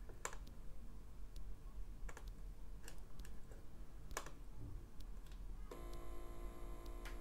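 A handful of sharp, separate clicks as the Amiga Test Kit audio menu items are selected, with the Protracker tune muted. About 5.7 s in, the tune comes back on a single Amiga 1200 sound channel (channel 0) as steady chip-music notes.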